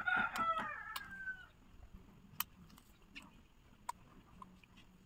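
A rooster crowing once, a call of about a second and a half that trails off falling in pitch, followed by a few scattered sharp clicks.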